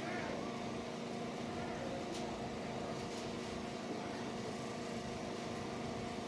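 Steady low hum with several held tones under a faint hiss, typical of a live public-address system with no one speaking into the microphone; a faint click about two seconds in.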